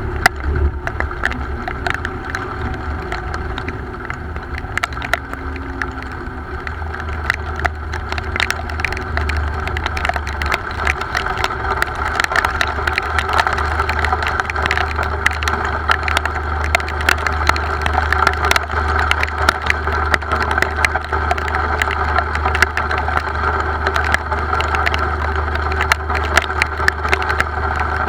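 Rain: many irregular sharp raindrop ticks over a steady low drone.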